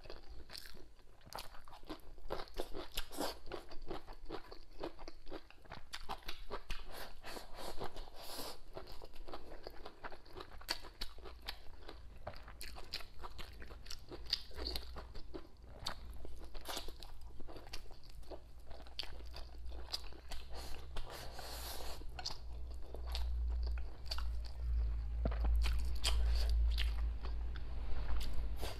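Close-miked chewing and biting of braised pork belly with preserved mustard greens and rice, with a dense run of small wet mouth clicks. A low rumble builds in the last few seconds.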